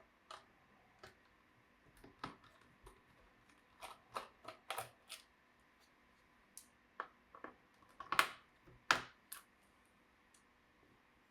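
Irregular small clicks and taps of tools and plastic parts as a laptop is taken apart, with the two loudest clicks near the end.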